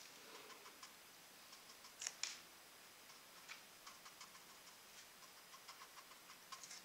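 Faint, irregular ticks and scratches of a fine paintbrush dabbing acrylic paint onto paper in small touches, with two sharper clicks about two seconds in.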